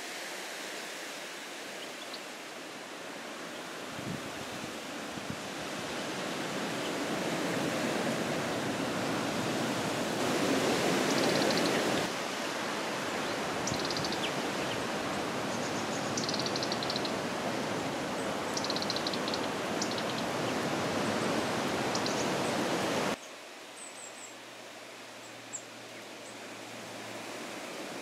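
Steady rushing outdoor background noise, with a few faint, short high chirps from small birds in the middle stretch. Most of the noise drops away suddenly about two-thirds through.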